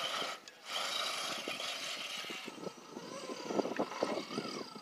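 Electric motors and gear drives of RC scale crawler trucks whining steadily as they drive over sandstone. About halfway through, the whine gives way to a run of sharp knocks and scrapes of tyres and chassis on the rock, with a brief rise and fall of motor whine near the end.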